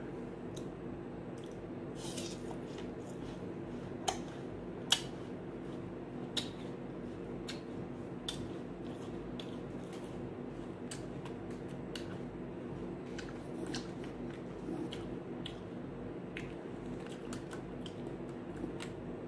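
Crisp green apple slices being bitten and chewed close to the microphone: scattered sharp crunches, two louder ones about four and five seconds in, over a steady low hum.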